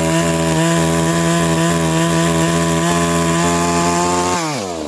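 Two-stroke 92cc Neo-Tec chainsaw running at full throttle through a cut in wood, the revs wavering slightly under load. About four and a half seconds in, the throttle is released and the engine note falls quickly toward idle.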